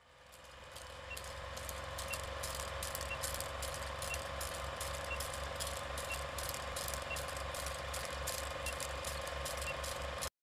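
Vintage film projector running: a steady mechanical clatter with a hum, fading in over the first couple of seconds, with a faint short beep about once a second as the countdown leader runs, then cut off suddenly near the end.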